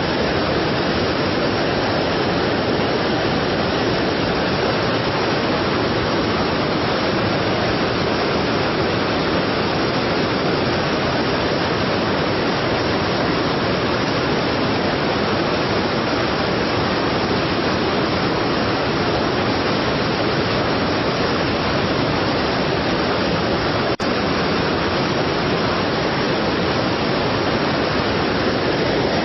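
Strong waterfall: a steady, heavy rush of falling water, with one brief click and dip about three-quarters of the way through.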